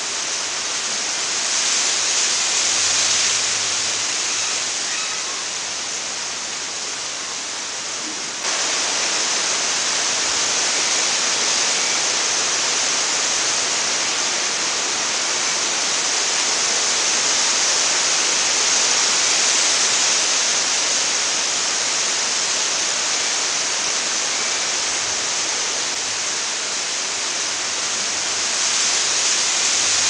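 Strong wind rushing through the foliage of swaying trees and coconut palms, a steady hiss of leaves that jumps abruptly louder about eight seconds in.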